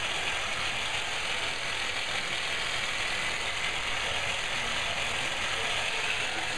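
A motorized device running with a steady mechanical whir.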